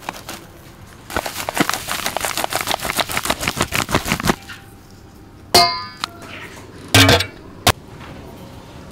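Metal spoon working in stainless steel mixing bowls: a rapid run of light clicks and rattles for about three seconds, then a loud ringing clang of metal on a steel bowl about halfway through, and another sharp metallic knock a second and a half later.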